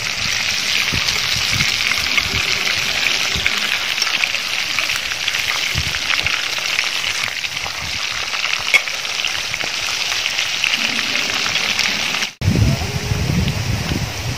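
Hot oil sizzling and crackling steadily as marinated whole quail deep-fry in a steel pot, with a wire spider skimmer stirring them and one sharp click about halfway through. Near the end the sound cuts out briefly and returns with a low rumble under a weaker sizzle.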